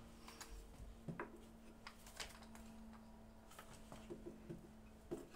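Faint, scattered clicks and light wooden knocks from wooden handscrew clamps being turned tight by hand, over a faint steady hum.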